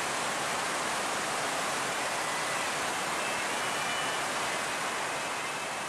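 Steady, even rushing hiss with no separate events, easing slightly near the end.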